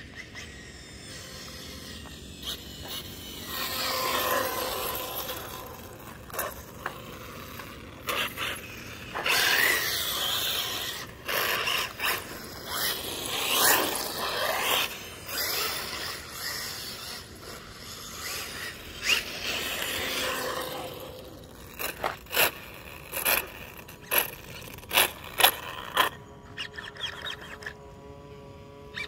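Electric 1/8-scale RC buggy with a Castle 1515 brushless motor on 4S, making several runs: its motor and tyres whine and hiss as it speeds up and slows down, four times. Near the end come a string of short, sharp bursts.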